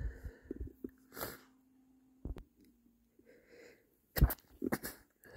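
A man's stifled sneezes, held back into short, sharp bursts. The loudest two come about four seconds in, half a second apart, after a softer burst about a second in.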